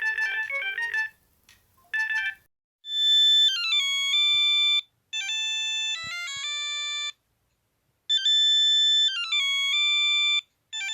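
Alcatel OT-E256 mobile phone ringtone: a fast run of repeated synthesized notes ends about a second in. Then a new polyphonic melody plays in two-second phrases with short pauses between them, looping.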